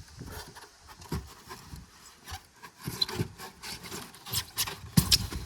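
Polystyrene insulation boards rubbing and scraping in irregular strokes as they are handled and fitted around a pipe, with a few sharper knocks near the end.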